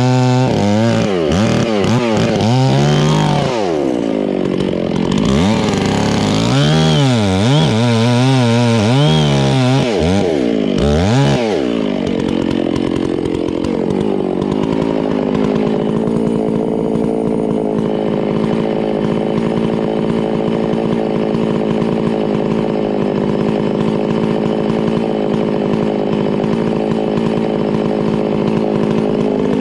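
Two-stroke chainsaw running loud, its revs swinging up and down over and over for about the first twelve seconds, then holding at a steady pitch for the rest.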